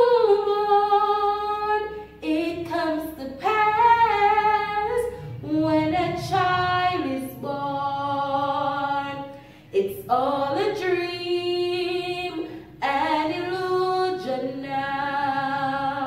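A woman singing unaccompanied, a Christmas carol melody in long held notes with short breaks between phrases.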